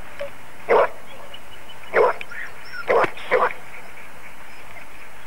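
A dog barking four times, single barks spaced about a second apart with the last two close together, over a steady hiss.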